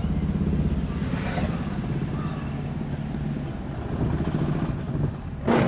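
Toyota Prius petrol engine running with a steady low rumble, on a car with check-engine misfire faults. A brief, loud noise cuts in near the end.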